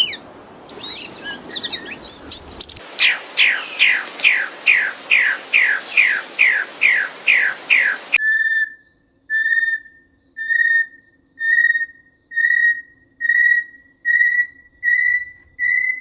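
Birds calling in three different passages: first mixed chirps, then about two quick falling whistles a second, then after about eight seconds a series of evenly spaced, clear whistled notes, each held about half a second and creeping slightly higher in pitch.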